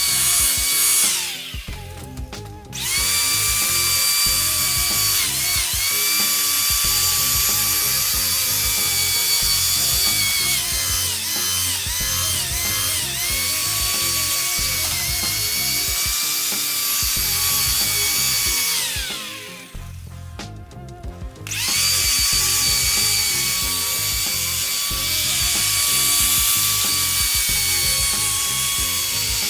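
Electric buffer polishing a plastic headlight lens, its motor running with a steady whine. It winds down and stops about a second in, spins back up about a second later, then stops and restarts again about twenty seconds in.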